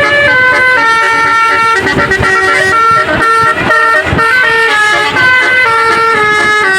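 Basuri melody horn on a tour bus playing a tune: a string of loud, held horn notes that jump to a new pitch every half second or so.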